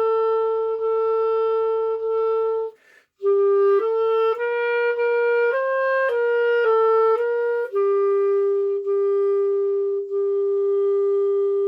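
Solo clarinet playing a melody. A held note is followed by a short breath about three seconds in, then a run of short notes, then a long lower held note, tongued again a couple of times, near the end.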